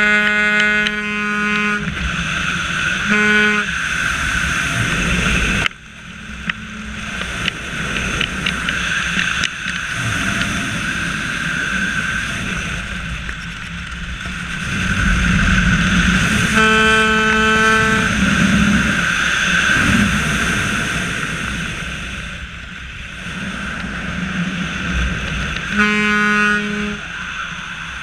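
A horn sounding four times: a long blast at the start, a short toot about three seconds in, a longer blast about seventeen seconds in and another near the end. Between the blasts, a steady vehicle running noise with a high whine.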